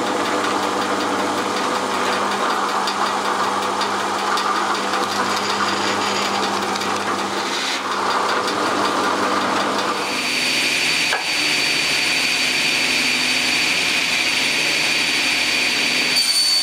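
Bench drill press running with a hole saw boring a round hole through a wooden board, a steady motor hum under the cutting. About ten seconds in this gives way to a table saw running with a steady high whine, with a single click shortly after.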